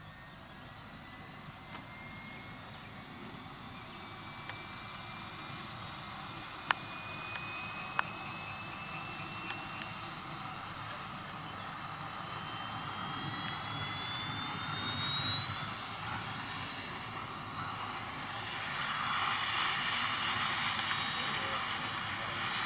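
Turbine engine of a large radio-controlled scale EC135 model helicopter starting up: a whine that climbs steadily in pitch and grows louder as the turbine spools up. Two sharp clicks sound about seven and eight seconds in.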